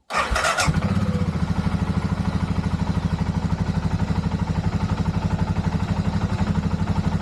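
BMW F650GS Dakar's single-cylinder engine started on the electric starter: a brief crank, then it catches within a second and idles with a steady, fast pulse. The owner judges it still not right, with an intermittent ignition fault that makes it cut out.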